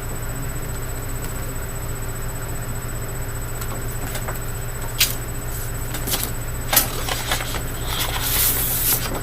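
Papers and card from a gift kit being handled: a few sharp clicks and taps, one about five seconds in and another near seven seconds, then a brief rustle near the end, over a steady low hum.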